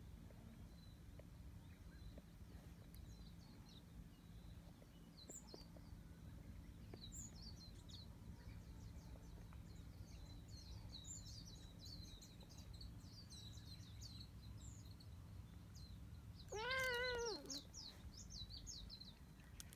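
Domestic cat meowing once, a single meow of about a second that rises and falls in pitch, near the end. Faint small-bird chirps and a low steady outdoor rumble sit underneath.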